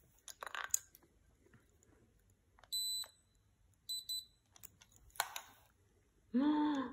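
Handheld UPRtek light spectrometer giving two short, high beeps a little over a second apart as it takes a spectrum reading, with light clicks from the meter being handled.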